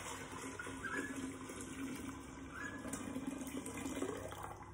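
Sweet tea pouring in a continuous stream from a stainless steel saucepan into a large glass jar, splashing as the jar fills, the flow easing off near the end.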